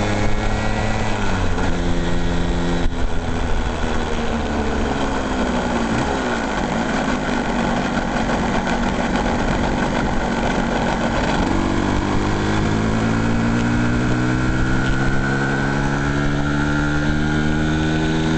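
An engine running, its pitch dropping over the first several seconds, then climbing steadily again through the second half.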